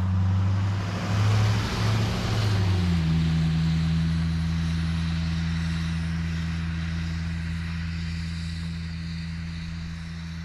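Pickup truck engine passing and driving away. Its note drops in pitch about three seconds in, then holds steady as it slowly fades.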